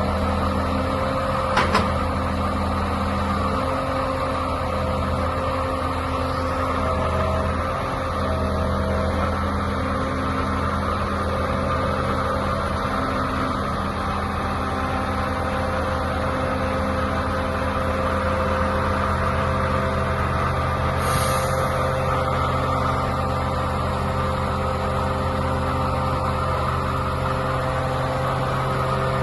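Mercedes-Benz Actros 3241 truck's diesel engine running steadily, its pitch shifting slightly a couple of times. There is a sharp click about a second and a half in, and a short hiss of air about twenty seconds in.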